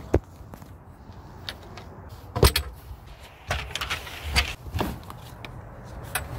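Skis and gear being loaded into a car's cargo area: several separate knocks and thuds, the loudest about two and a half seconds in, with quiet handling noise between.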